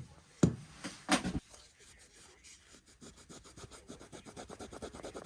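A couple of sharp knocks as a pocket knife is handled, then quick, rhythmic back-and-forth rubbing as the knife is scrubbed clean by hand.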